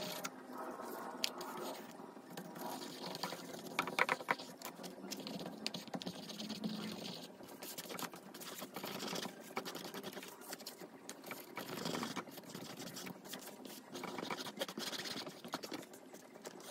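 Paper collage work on a stretched canvas: soft rustling and scratching of paper scraps being handled, with a paintbrush brushing over the canvas and small taps and clicks throughout.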